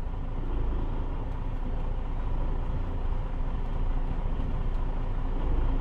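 Semi truck's diesel engine running steadily with a low rumble as the truck moves slowly.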